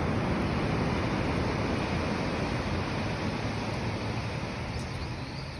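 Steady rush of ocean surf with wind, heaviest in the low end, easing slightly toward the end.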